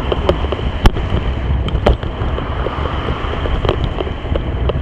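A cyclist's heavy breathing under strong wind buffeting on the microphone, with scattered sharp clicks and knocks.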